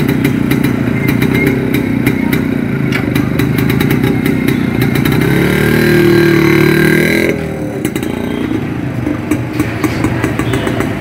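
1979 Yezdi Roadking's single-cylinder two-stroke engine running with its rapid beat, revved up loudly for about two seconds near the middle, then falling away quieter among other traffic.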